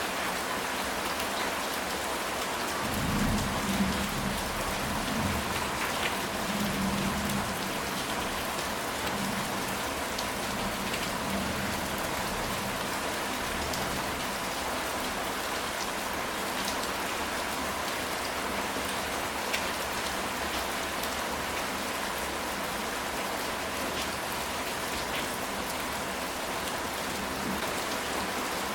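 Steady rain falling on a ceramic tile roof, with a low rumble of thunder starting about three seconds in and dying away over the next few seconds.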